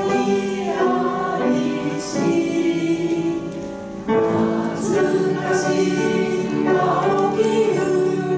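A group of voices singing a slow Japanese song together, a line at a time, to piano accompaniment, with a brief breath between lines about four seconds in.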